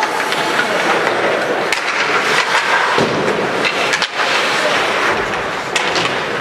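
Ice hockey on the rink: skate blades scraping the ice, with a few sharp clacks of sticks and puck.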